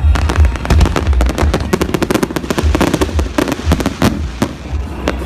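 Fireworks going off in quick succession: a dense run of sharp cracks and bangs that thins out near the end, with one last bang, over a low rumble.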